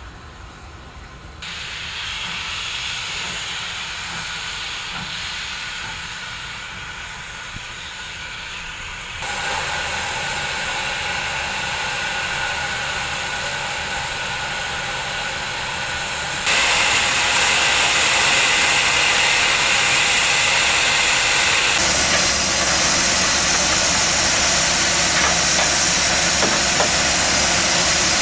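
Class 15CA and Class 25NC steam locomotives hissing steam steadily. The hiss gets louder in sudden steps, most strongly a little past halfway.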